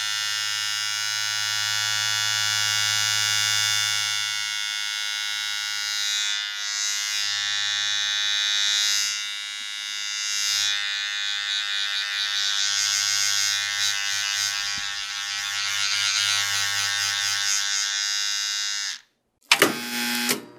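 Traffic light electric buzz: a steady, high, buzzing hum whose loudness wavers slightly. It cuts off about nineteen seconds in, and a different, choppier buzz starts just before the end.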